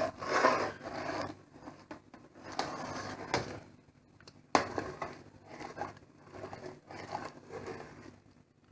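Spoon stirring soup in a cooking pot, a run of short scraping strokes roughly once a second, with a sharp knock against the pot about four and a half seconds in.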